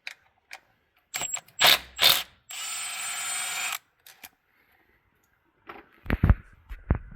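A ratchet wrench loosening the 8 mm bolts of a 68RFE transmission valve body: a few quick clicks, then about a second of steady whirring as a bolt spins out. Several heavy knocks follow near the end.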